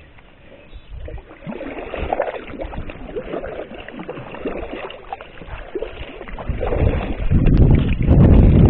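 Water splashing and lapping against a Mirage sea kayak's hull as it is paddled. A loud low rumble joins in over the last two seconds.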